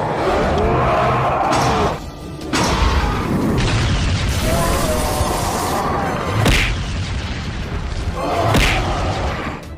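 Cartoon fight soundtrack: music under booming impact sound effects, with two sharp hits about six and a half and eight and a half seconds in.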